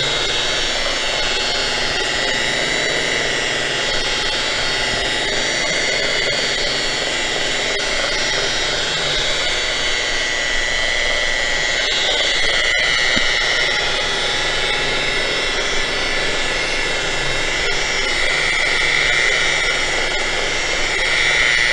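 Handheld electric angle grinder with a polishing pad running steadily with a high whine while buffing an aluminum pontoon tube. It gets a little louder twice, about halfway through and near the end.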